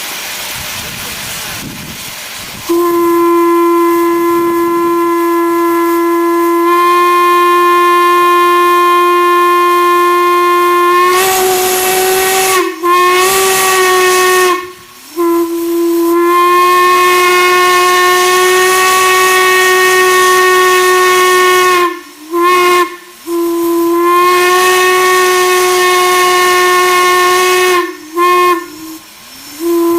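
Steam whistle blowing in long blasts on one steady note, after a couple of seconds of steam hissing. The blasts break off briefly several times, the pitch sagging each time the valve closes, before sounding again.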